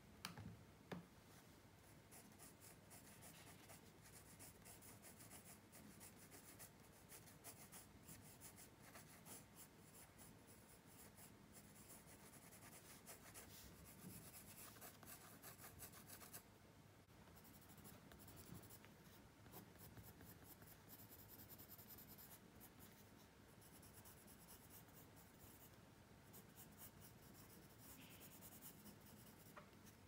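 Colored pencil scratching faintly on paper in quick, repeated strokes, with a short pause about halfway through. Two soft knocks come in the first second.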